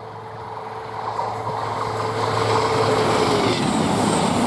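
A CrossCountry Class 221 Super Voyager diesel multiple unit approaching and passing at speed, its underfloor diesel engines growing louder. The steady engine note drops in pitch about three and a half seconds in as the front of the train passes. A loud rush of wheels on rail and air follows.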